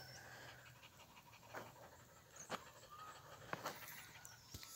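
Very faint dog panting, with a few soft clicks about a second apart.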